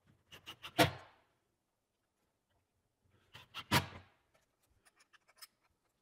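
Clicks and knocks of parts and tools being handled during tray assembly. There are two short runs of clicks, each ending in a sharp knock: one about a second in, the other about three and a half seconds in. A few light ticks follow.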